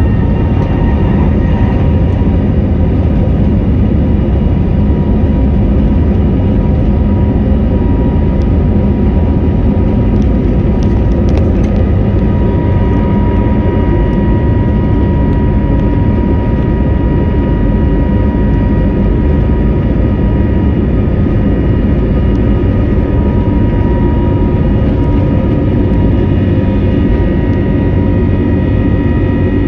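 Jet airliner engines running steadily: a constant whine over a loud rumble, with no rise or fall in pitch.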